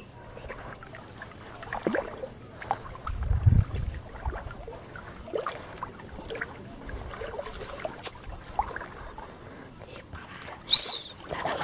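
Shallow muddy water sloshing and splashing as a person wades and reaches into it with the hands, with scattered small knocks and a low rumble about three and a half seconds in. A short, high, arched call near the end is the loudest sound.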